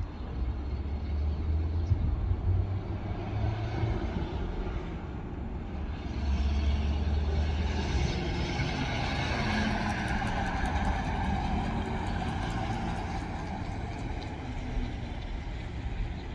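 1946 Ford pickup driving past, its engine and tyres growing louder as it comes nearest, loudest from about eight to eleven seconds in, then fading as it moves away.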